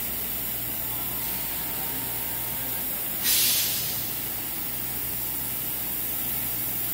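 A short, loud burst of compressed-air hiss, about half a second long, about three seconds in, over a steady background hum and hiss.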